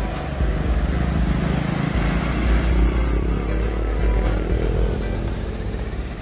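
Mitsubishi Colt Diesel dump truck's diesel engine pulling past close by. Its note rises in the middle as the truck accelerates.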